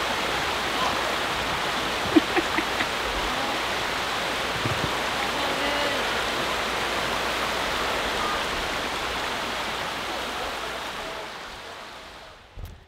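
Mountain river rushing over rocky rapids: a steady roar of white water that fades out near the end.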